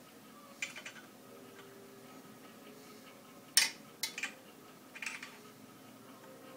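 A metal wrench clinking against the balance bike's handlebar clamp bolt as it is tightened: a handful of separate sharp clicks, the loudest about three and a half seconds in.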